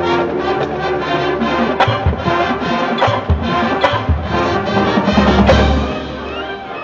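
High school marching band playing full ensemble: brass chords over percussion, with low bass drum hits and a few sharp percussion strikes. It swells to its loudest about five and a half seconds in, then drops back to a quieter passage.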